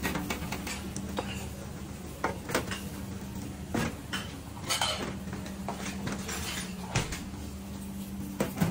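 Metal kitchen tools clinking and knocking: steel tongs and a black metal pizza pan on a steel counter, and a rocker pizza cutter pressing through a pizza onto a wooden board. The knocks come at irregular moments over a steady low hum.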